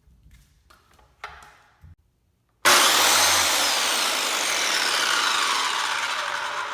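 Power saw running, cutting in abruptly about two and a half seconds in after a few light knocks, holding steady and then slowly fading near the end.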